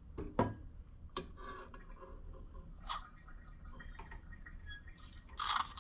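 A stainless milk pitcher handled under an espresso machine's steam wand: a few light metal clicks and knocks, then near the end a short hiss as the steam valve is opened.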